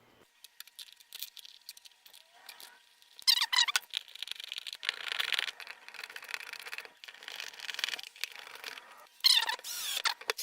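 Small screws being turned into the plastic window-switch trim by hand: scattered clicks of parts and screws being handled, then squeaky scraping of plastic on plastic, sharpest about three seconds in and again near the end.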